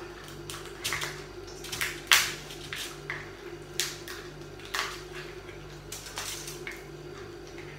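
Shell of a cooked lobster cracking and crunching as it is pulled apart by hand: a run of irregular sharp cracks, the loudest about two seconds in.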